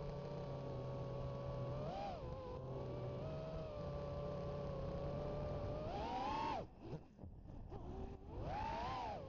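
FPV quadcopter's electric motors whining at a steady pitch, rising briefly about two seconds in, climbing with a throttle punch near six seconds before cutting off sharply, then rising again near the end.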